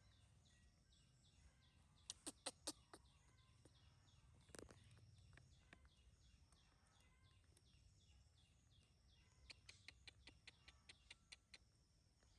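Near silence: faint high chirps repeating evenly in the background, with a few short light clicks, four together about two seconds in and a quick run of about ten near the end.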